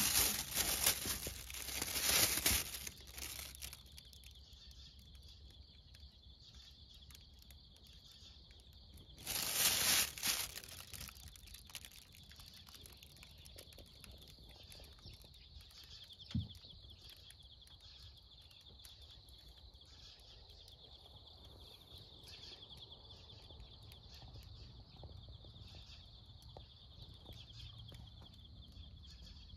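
Thin plastic bag of harvested tomatoes rustling and crinkling as it is handled, in two bouts about nine seconds apart. Between them a faint steady high-pitched chirring carries on.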